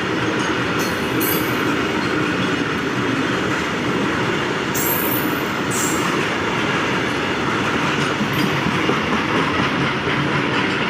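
Freight train behind a WAG-12 electric locomotive rolling past steadily on the rails, with short high wheel squeals about a second in and again around five and six seconds.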